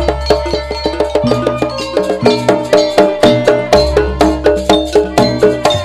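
Banyuwangi jaranan ensemble playing live: a fast run of short pitched percussion strokes, about four a second, over drums. A deep low tone swells at the start and again about two-thirds of the way through.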